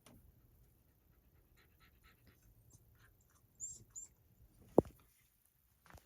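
Small sounds from a pet dog: faint clicks, two short high squeaks past the middle, and one sharp knock a little before the end.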